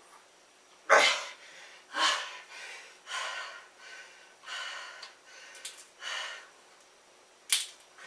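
A man breathing hard and panting, one loud breath about every second, the loudest about a second in; he is winded from a set of push-ups.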